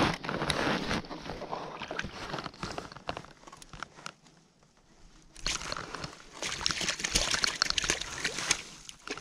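Shallow lake water sloshing and splashing against shoreline rocks as a hand releases a trout into it. It dies down for a couple of seconds around the middle, then splashes again for the last few seconds.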